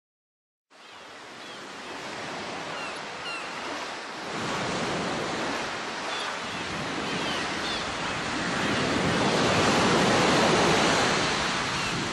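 Ocean surf washing in, fading up from silence just under a second in and swelling to its loudest about ten seconds in before easing back, with short high chirps scattered over the noise.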